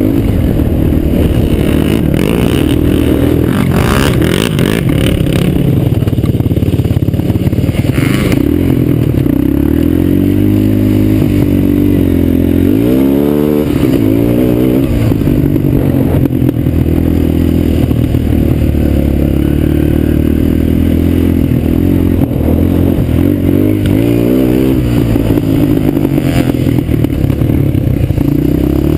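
Suzuki LT-Z250 quad's single-cylinder four-stroke engine running hard under load on a dirt track, its pitch rising and falling with the throttle and climbing sharply as it revs up twice. A few brief bursts of rushing noise come over it.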